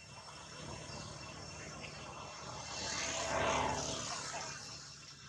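A motor engine passing by, swelling to its loudest about three and a half seconds in and then fading away.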